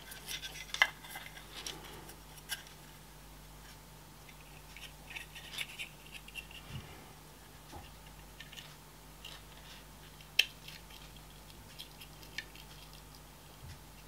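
Small plastic clicks and scratching as the plastic housing of a projector's blower cooling fan is handled and fitted together by hand, with a few sharper clicks standing out.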